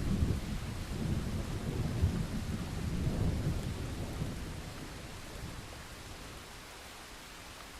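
Thunderstorm: a long, low rumble of thunder over steady rain, dying away about halfway through and leaving only the hiss of the rain.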